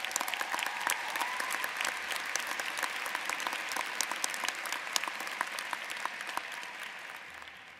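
Large audience applauding, a dense patter of many hands clapping that fades away near the end.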